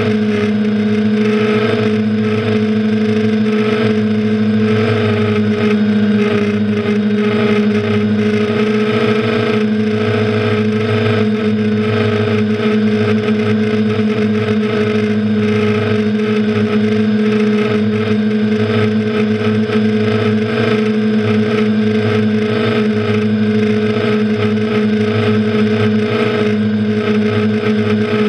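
Quadcopter's electric motors and propellers running steadily in flight, heard from the camera mounted on the aircraft: a loud, even hum of several held pitches, dipping slightly near the end.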